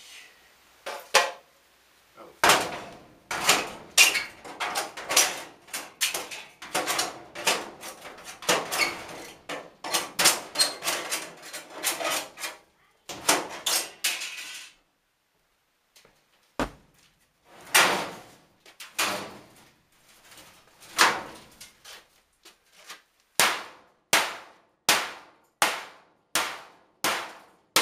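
Hammer blows on an old furnace's metal, strike after strike at about two a second, each ringing on briefly. There is a short break about halfway through.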